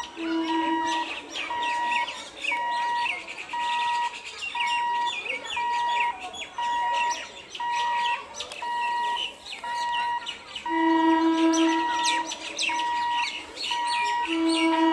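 Birds chirping over a steady electronic beeping, about two beeps a second. A lower hooting tone sounds briefly three times, loudest about eleven seconds in.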